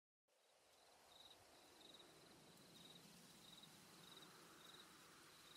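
Faint night-time field ambience with a cricket chirping: short, high trilled chirps repeating evenly about every 0.7 s over a soft hiss.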